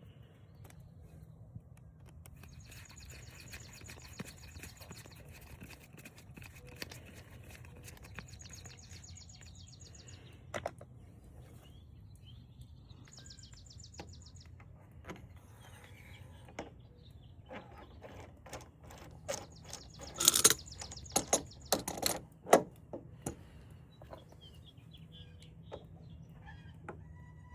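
Birds chirping in short rapid high trills in the background, with a low steady hum underneath. About twenty seconds in comes a run of sharp clicks and knocks as tools and frost-free faucet parts are handled during reassembly after the seal washer is replaced.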